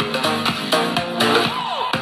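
Electronic dance music with a steady beat playing through a Booms Bass L6 Bluetooth bar speaker, with a swooping synth glide near the end.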